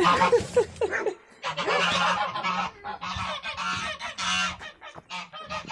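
Domestic geese honking, a run of harsh, repeated calls.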